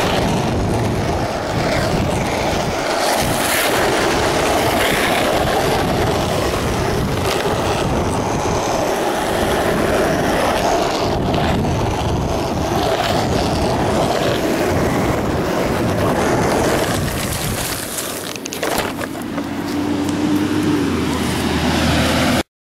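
Skateboard wheels rolling fast on asphalt, with wind rushing over a handheld camcorder's microphone. A little past three-quarters of the way through, the rolling noise falls off and a sharp knock follows: the camera hitting the ground in a crash.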